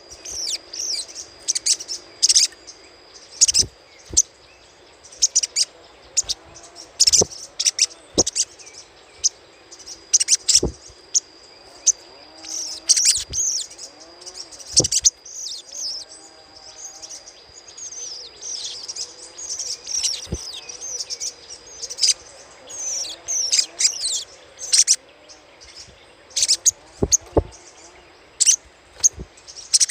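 Spiderhunter giving repeated short, sharp chattering calls in quick bouts throughout, used as a lure call to provoke other birds. A steady high thin tone runs beneath the calls.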